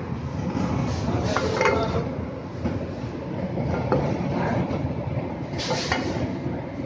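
Food frying in a pan on the stove over a steady low rumble, with a few metallic clinks about one and a half seconds in and again near the end.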